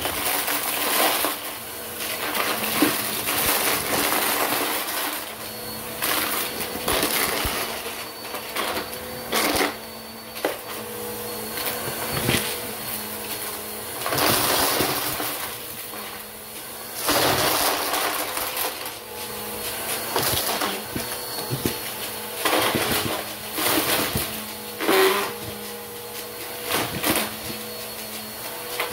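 Bissell upright vacuum cleaner running steadily while sucking up plastic bottle caps and fake coins from a carpet: irregular clattering and crunching as the pieces rattle through it and the brittle fake coins break up, over the constant motor hum.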